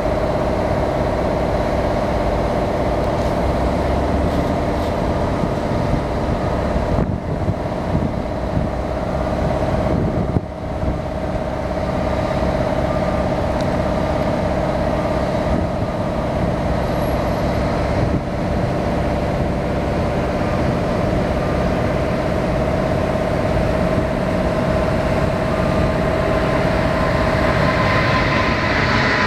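Four GEnx-2B jet engines of a Boeing 747-8 at takeoff thrust during the takeoff roll: a steady rumble with a steady hum. It grows louder and hissier near the end as the jet lifts off.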